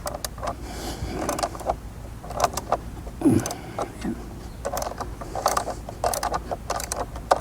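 Socket ratchet clicking in quick runs of short sharp clicks as the fender's mounting bolts are worked loose.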